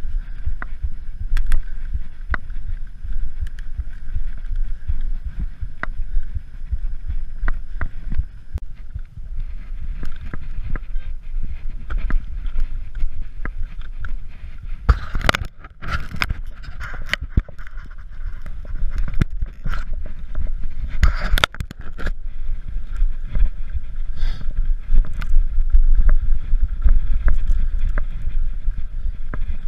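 Mountain bike ridden over slickrock and sandy trail: a low rumble of tyres and wind on the camera, with frequent clicks and rattles from the bike over bumps and two heavier bursts of clattering around the middle.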